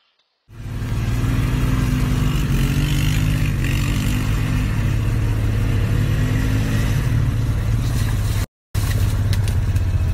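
Quad bike (ATV) engine running steadily and loud, close to the microphone. The sound cuts out completely for a moment about eight and a half seconds in, then the engine is heard again.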